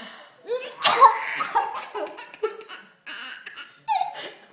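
A woman coughing hard about a second in, followed by a baby's short bursts of laughter.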